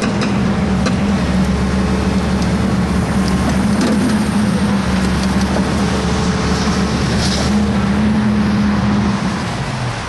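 Volvo EC210B excavator's diesel engine running steadily with a low hum, easing off near the end.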